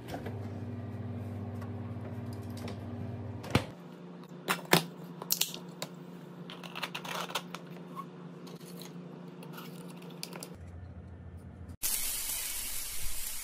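Refrigerator door pulled open over a steady low hum. A few seconds in come sharp clicks and clinks of a drink can being handled and its tab cracked open. Near the end a sudden loud hissing whoosh starts.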